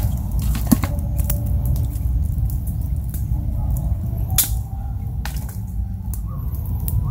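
Wood campfire crackling: scattered sharp snaps and pops, two of them louder, about a second in and past the middle, over a steady low rumble.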